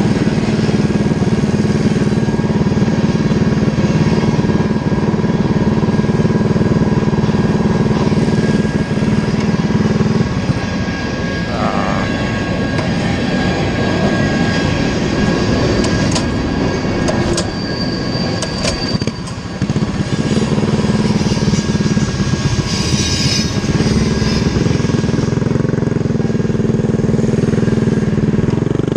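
Cammed Predator 212 single-cylinder engine of a mini bike running under way. Its engine note holds steady, shifts and dips for several seconds around the middle, then steadies again.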